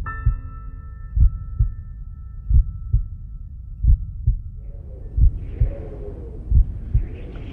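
Heartbeat sound effect in a cinematic soundtrack: a slow, deep double thump repeating about every 1.3 seconds. Sustained keyboard tones fade out near the start, and from about five seconds in an airy, wavering hiss swells in.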